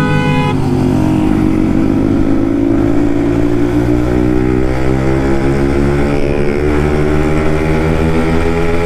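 Motorcycle with an aftermarket exhaust accelerating, its engine note climbing slowly and steadily in pitch. A vehicle horn sounds briefly at the very start.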